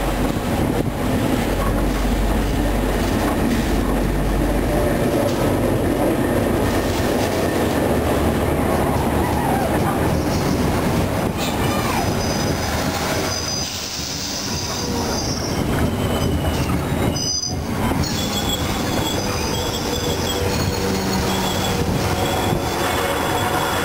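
A locomotive-hauled train passing close by on the rails. A low diesel engine rumble comes first as the locomotive goes past, then the cars roll by with high wheel squeal on and off.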